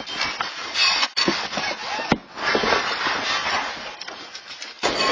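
Loud rattling and clattering of a room's contents shaking in a magnitude 7.0 earthquake, with abrupt breaks and changes about a second in and again near the end.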